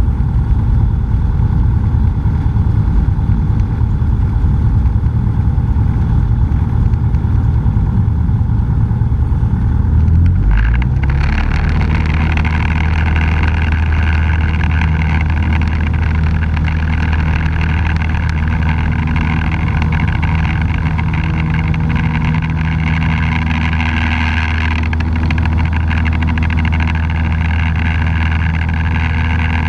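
Cessna 172's piston engine, heard from inside the cockpit, running at low power. About ten seconds in it rises to full power and holds a steady, strong drone through the take-off roll.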